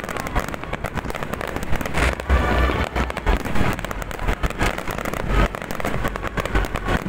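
Fireworks display: a dense, fast crackle of many shells and fountains going off together, with deep booms from bursting shells, the heaviest about two to three and a half seconds in.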